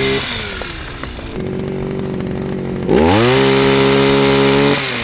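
Small engine of a backpack olive-harvesting shaker running. It drops to a lower speed just after the start, revs up sharply about three seconds in, holds high for nearly two seconds, then eases off.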